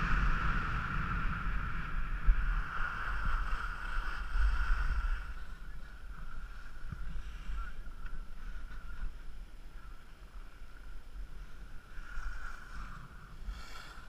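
Skis sliding and scraping over groomed snow, with wind buffeting the microphone; the rush eases after about five seconds as the skier slows.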